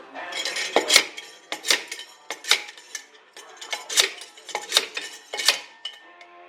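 Repeated sharp metal-on-metal strikes, like hammer blows on steel parts of a Suzuki LJ front swivel hub being taken apart: about six ringing blows, roughly one every three-quarters of a second, with a short pause midway.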